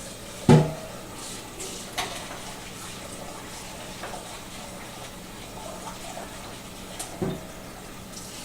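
Tap water running into a pot of rice for a rinse. A loud knock of the pot comes about half a second in, and two smaller knocks near the end.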